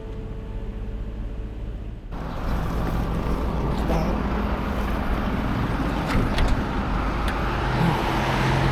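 Motor vehicle road noise: a steady engine hum under tyre and traffic noise, which gets suddenly louder about two seconds in, with a few light clicks later.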